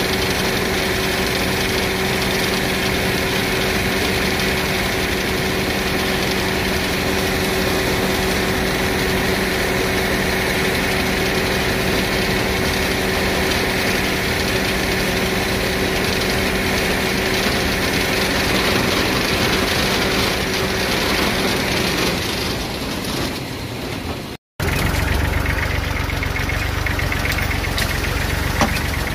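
Deutz-Fahr M 2385 combine harvester running steadily, its engine and threshing machinery giving a constant loud drone with a steady hum. Near the end the sound breaks off for an instant and returns as a deeper, heavier engine rumble.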